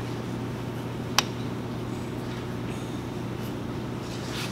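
One sharp metallic click about a second in as the seal-installer parts are fitted by hand onto the crankshaft nose, over a steady low hum.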